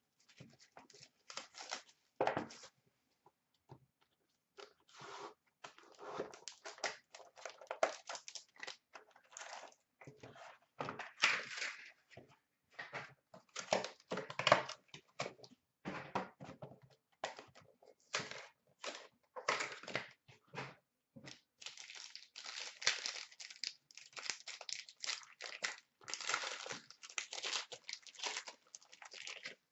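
Hands tearing open a hockey card box and the shiny foil-wrapped pack inside: irregular crinkling and tearing of cardboard and wrapper, in quick uneven runs with short pauses.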